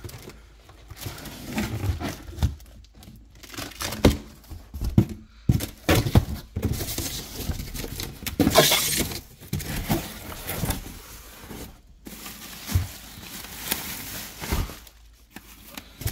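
A cardboard wheel box being torn open by hand: a string of sharp rips, cracks and scrapes as the cardboard and tape give way.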